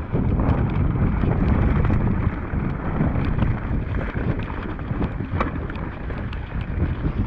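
Wind buffeting the microphone and knobbly tyres rolling fast over a dirt trail as a mountain bike descends, with frequent small clicks and rattles from the bike over rough ground.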